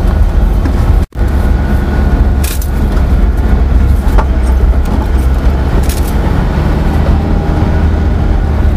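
Four-wheel-drive vehicle driving along a sandy desert track: a steady engine and road rumble with a few light knocks and rattles. The sound cuts out for an instant about a second in.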